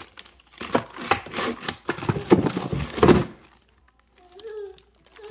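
Rummaging in a cluttered drawer: plastic zip-lock bags full of small hard items crinkling and clattering as they are shifted and dropped back in, for about three seconds.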